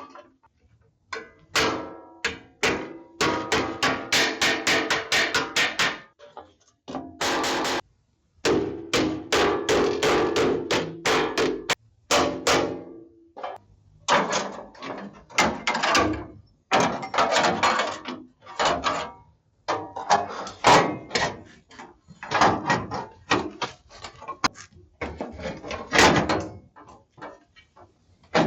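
Hammer striking the sheet-metal body of a 1971 K5 Blazer in quick runs of blows with short pauses between them, as a replacement panel is worked into fit.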